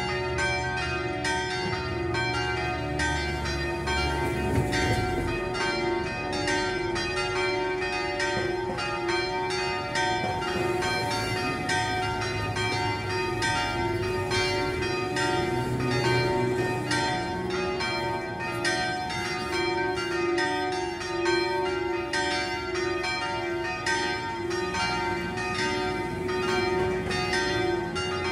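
The three smallest bells of a six-bell church ring (bells IV, V and VI) swung full circle 'a distesa', striking over and over so that their strokes overlap in a continuous, uneven peal. This peal is the second call to a weekday evening Mass.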